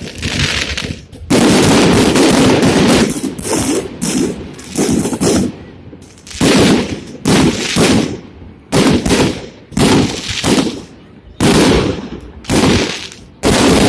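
Fireworks salute: a rapid, irregular string of loud shell bursts, roughly one a second, some close together, each dying away over about half a second.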